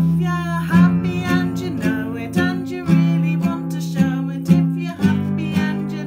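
Classical guitar strummed in a steady rhythm, about two strokes a second, with chords ringing between the strokes.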